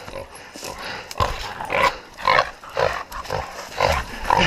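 Feral hog grunting in short, rhythmic bursts, about two a second.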